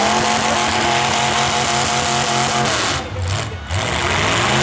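Demolition derby car engine revving, its pitch climbing into a held high rev, then revving up again near the end, over loud exhaust noise.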